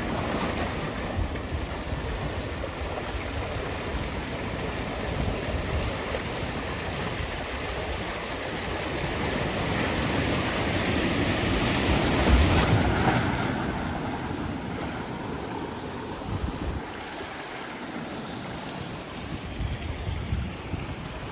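Water rushing and washing over shore rocks, swelling to its loudest a little after halfway and then easing. Wind buffets the microphone.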